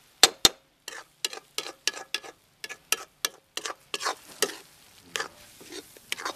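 A perforated metal spatula scraping and knocking against a metal kadai as egg and masala are stirred and fried. The strokes come quickly, about three a second, with two sharp knocks near the start and a faint sizzle between them.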